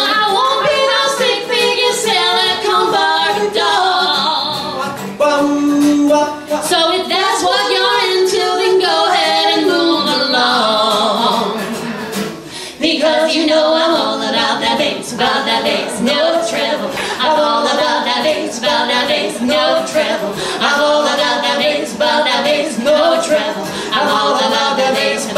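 A woman and a man singing a pop song live over a strummed acoustic guitar, with a short break in the singing about halfway through.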